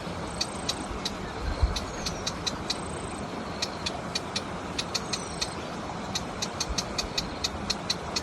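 A warbler calling: rapid sharp high chip notes repeated a few times a second, with a few short thin high whistles and quick falling notes mixed in. Underneath runs a steady low rumble of road traffic.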